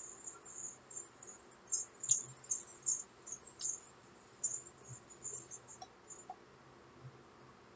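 Faint, irregular high-pitched chirping of crickets, stopping about six seconds in.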